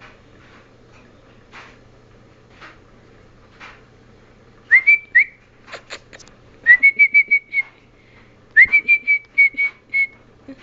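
A person whistling to call a dog: three bursts of high whistling, each starting with an upward slide and breaking into a quick run of short repeated notes. Faint light ticks come before the first burst.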